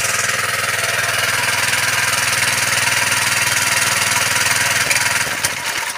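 Power sprayer's small engine and belt-driven pump running steadily, working again after a repair. The sound tapers off and cuts out right at the end.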